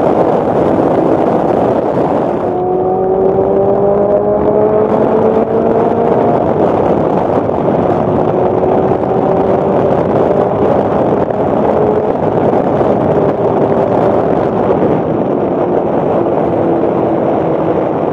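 Lotus Elise S2's four-cylinder engine pulling at highway speed under heavy wind rush on a side-mounted camera. The engine note rises for a few seconds after about two and a half seconds in, then climbs gently again and sinks slowly towards the end.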